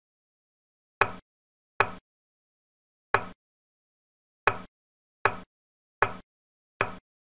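Draughts software's piece-move sound effect: seven identical short clicks at uneven intervals, one for each step as a piece moves and captures on the board, with dead silence between.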